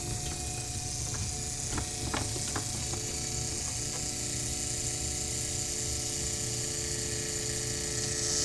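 DeLorean DMC-12 electric fuel pump running with its pickup hose pinched shut, a steady whirring whine with a few light clicks early on and more steady tones joining about three seconds in. It is the sound of the pump being starved, the same noise it made when broken-down rubber pieces clogged its reservoir.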